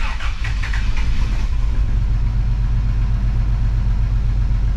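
Toyota 3F-E inline-six engine starting up and settling into a steady idle. There is extra clatter in the first second or so after it catches.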